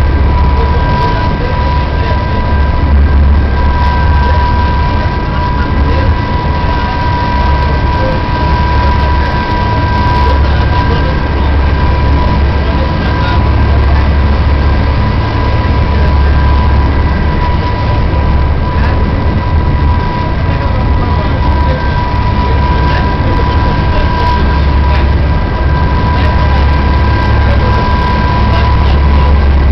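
A boat's engine drones steadily, heard from inside the vessel. A deep rumble sits under a constant high whine.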